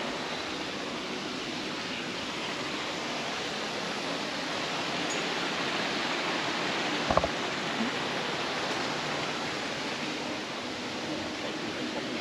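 Steady rushing outdoor noise with no distinct source, and a single short thump about seven seconds in.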